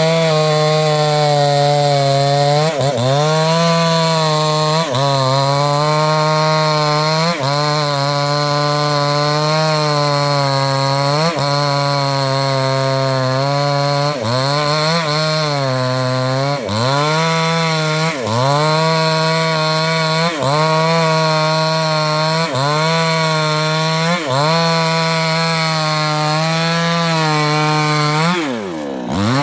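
New West 628 two-stroke chainsaw with a 24-inch bar running at full throttle, cutting into the base of a thick sengon trunk. Its engine note dips briefly about every two seconds as the chain loads in the cut, then picks back up. Near the end it drops deeper before revving back up.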